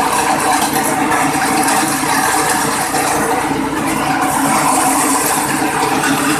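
Grass chopper for livestock feed running steadily on its small engine, its blades cutting green grass stalks as they are fed into the hopper.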